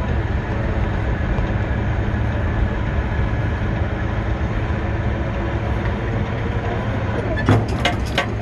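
CSX freight train rolling away on the rails: a steady rumble of wheels and cars, with a few sharp clacks near the end.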